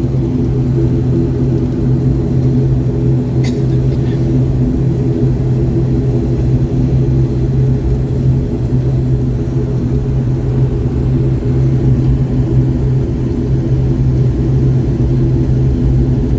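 Twin turboprop engines and propellers of an airliner running steadily, heard from inside the passenger cabin as a loud, even drone with a low hum. A brief click about three and a half seconds in.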